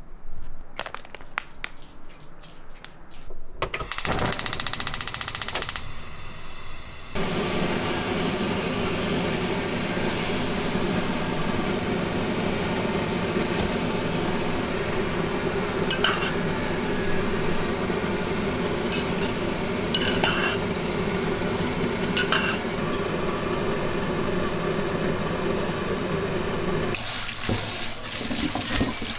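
Kitchen tap water running for a long steady stretch, with a few light clinks along the way; near the end the sound of the stream changes.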